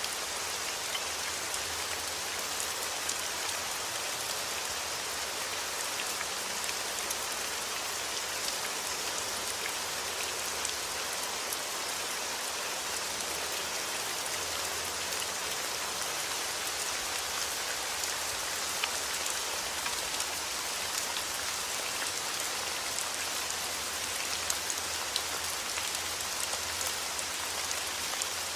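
Steady rain falling, an even hiss with many small drop ticks on the surface.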